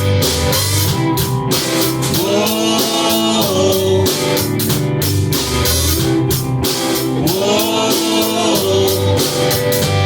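Rock band playing an instrumental passage: a drum kit keeping a steady beat under electric guitar and bass, with bending guitar notes.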